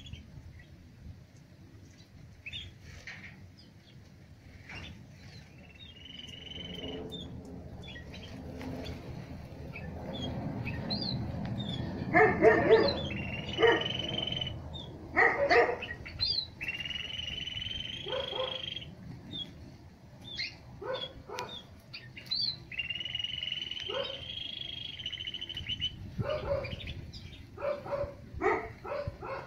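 Caged crossbills, common crossbill and parrot crossbill, calling: many short, sharp notes in quick runs, loudest around twelve to fifteen seconds in, with several longer held high notes of one to two seconds.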